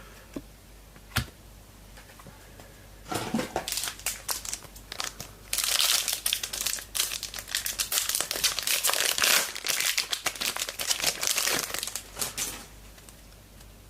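A 2022 Footy Stars trading-card pack wrapper being torn open and crinkled, with a single click about a second in. Dense crinkling starts about three seconds in, grows thickest midway and stops shortly before the end.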